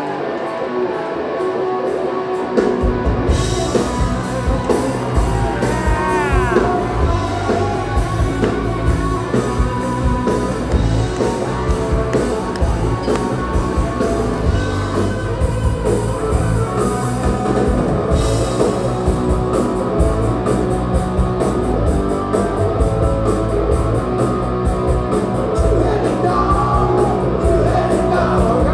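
Live rock band playing: a guitar riff on its own, then drums and bass guitar come in about two and a half seconds in and the full band plays on.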